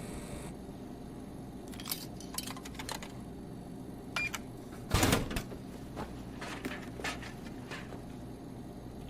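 Indoor room tone: a steady low hum with scattered small clicks and knocks, and one louder thump about five seconds in.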